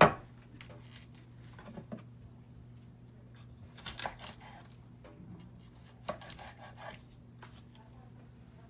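Knife cutting the tough stems out of collard green leaves: a few crisp cuts and leaf rustles, the clearest about four and six seconds in, over a steady low hum.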